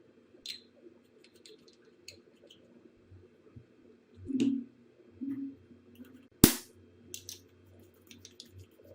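Small objects being handled: scattered light clicks and taps, a dull knock about four and a half seconds in, and one sharp snap about six and a half seconds in.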